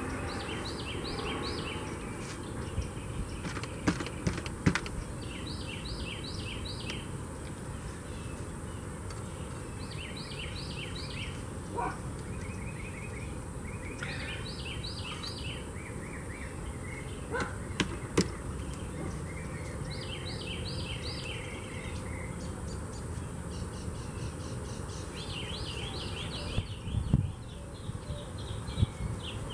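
A songbird singing a short phrase of four or five quick notes, repeated every few seconds, over steady outdoor background noise, with a few sharp knocks.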